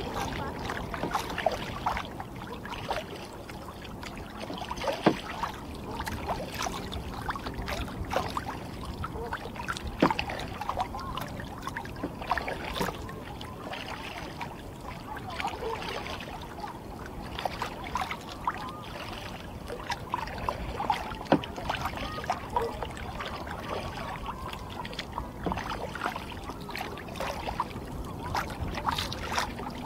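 Water lapping and splashing around a kayak on choppy seawater, with irregular sharp splashes and drips from the paddling.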